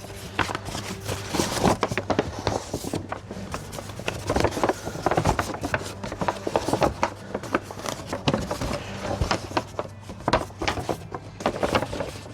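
Hands working an electrical wiring connector and its parts: irregular clicks, scrapes and rubbing, over a steady low hum.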